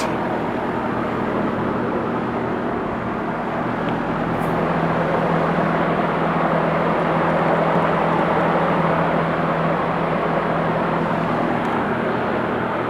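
2007 American Standard heat pump outdoor units running: a steady low hum under a broad rush of fan noise, which grows a little louder toward the middle and eases off.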